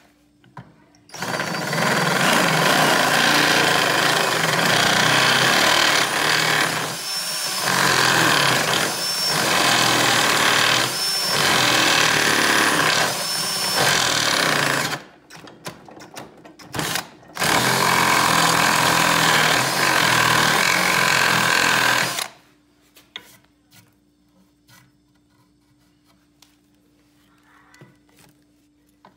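Cordless drill driving a tapered reamer into the bung hole of an oak barrel head, the reamer cutting the wood loudly. The drill eases off briefly several times, about every two seconds, stops for about two seconds with one short burst, then runs again for about five seconds.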